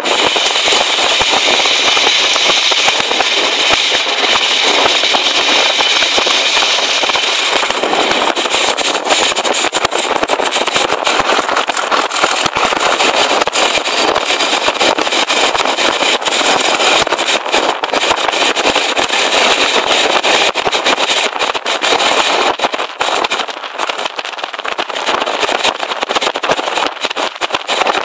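Diesel-locomotive-hauled passenger train running at speed, heard from an open carriage window: a loud, steady mix of engine noise, wheels on the rails and rushing air. A higher whine sits over it for the first several seconds and fades about eight seconds in.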